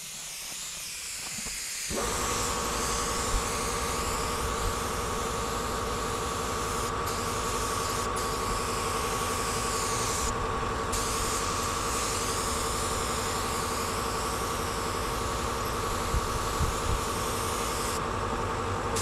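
Paint spray gun hissing as it sprays, the hiss breaking off briefly a few times when the trigger is let go. About two seconds in, a motor with a steady hum starts up and runs under it.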